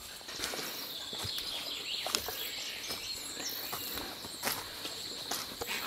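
Footsteps on dry leaf litter along a forest trail, a scatter of irregular rustles and crackles, over a steady high-pitched hum of insects.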